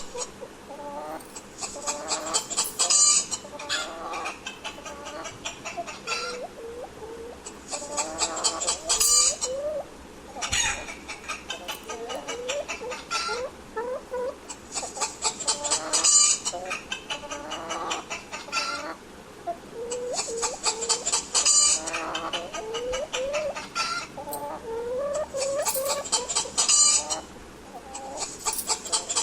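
Hens clucking, a run of short rising clucks, joined about every six seconds by a louder burst of rapid, high-pitched calls.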